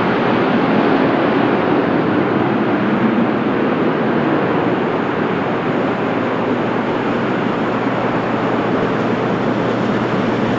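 Airbus A350-900's twin Rolls-Royce Trent XWB turbofans at takeoff power on departure: a loud, steady jet rush.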